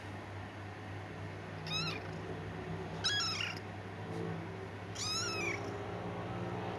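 Kitten meowing three times, short high-pitched calls that rise and fall in pitch.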